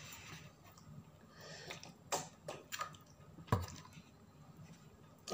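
Wet mouth sounds of eating soupy noodles, with a few sharp clicks and a louder knock about three and a half seconds in.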